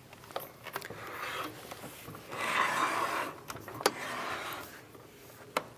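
A vinyl sample window on a wooden base being turned and shifted on a tabletop: a scraping rub lasting about a second near the middle, with softer rubbing before it and a few light knocks and clicks.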